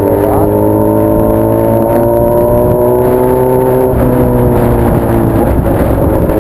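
Honda Hornet motorcycle's inline-four engine running loud through a 3-inch aftermarket exhaust while being ridden. The pitch climbs slowly, drops about four seconds in, then holds steady.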